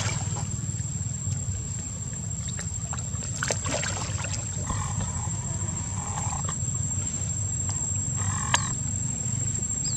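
Macaques giving a few brief calls, with one short sharp squeal about eight and a half seconds in, over a steady low rumble and a thin high steady tone.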